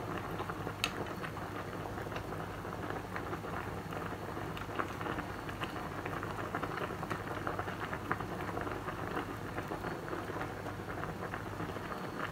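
Hulled soybeans boiling hard in a stainless steel pot with a steady, dense crackle of bubbles. They are being boiled until slightly soft for tempeh.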